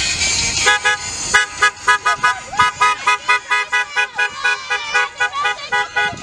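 Car horn honked in rapid short toots, about three a second, starting about a second in.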